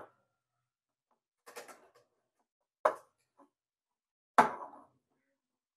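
Spatula scraping and knocking against a bowl while stirring a stiff mash of potato and cornflour. There are three short strokes about a second and a half apart, the last the loudest.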